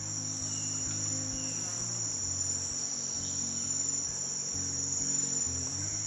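A steady, high-pitched drone from a chorus of rainforest insects, unbroken throughout, with soft low background music underneath.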